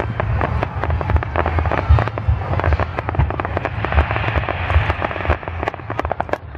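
Ground-fired fireworks going off in quick succession: a dense, continuous string of sharp pops and bangs, several a second, with crackling between them.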